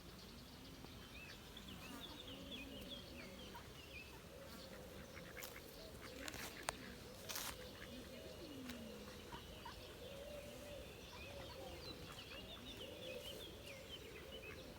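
Faint outdoor birdsong: small birds chirping, with repeated low calls from ducks on the water. A few sharp clicks come near the middle.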